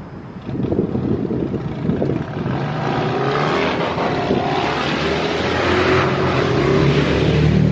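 A motor vehicle's engine running and growing louder, with a few gliding pitch changes, after a couple of seconds of rustling and knocking.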